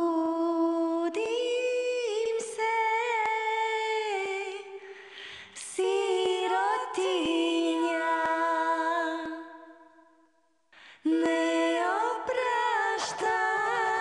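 A cappella singing: several voices holding chords together, some notes sliding between pitches. It thins out about five seconds in, fades away near ten seconds, and comes back about a second later.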